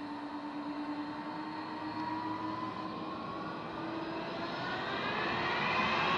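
Airliner engines whining, their tones rising in pitch and growing louder through the clip.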